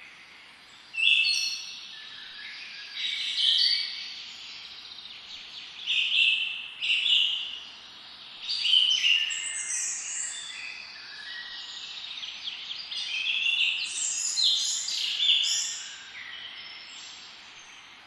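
Songbirds singing: bright phrases of song, several birds overlapping, over a steady background hiss.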